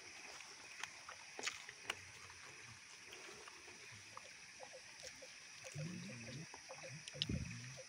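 Quiet outdoor background: a steady high hiss, a few light clicks, and faint voices in the background near the end.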